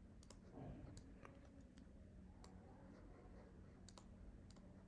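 Near silence with faint, scattered clicks and taps of a stylus writing on a drawing tablet, over a faint steady low hum.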